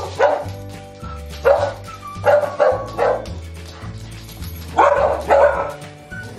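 A dog barking in short, sharp barks, about eight of them, several in quick succession, over upbeat background music.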